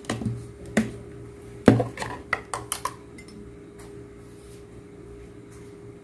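Plastic tub of red chili dipping sauce being opened and a metal spoon worked in it: a quick series of clicks, taps and scrapes of spoon and lid against plastic, loudest a couple of seconds in, then a few faint taps. A steady low hum runs underneath.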